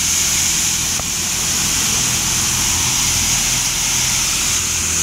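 Touchless car wash gantry on its high-pressure rinse: water jets spraying onto a car with a loud, steady hiss over a low, steady machine hum.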